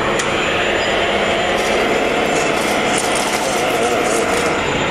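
Radio-controlled truck's sound unit playing a simulated diesel engine running steadily as the model drives forward, over a constant din.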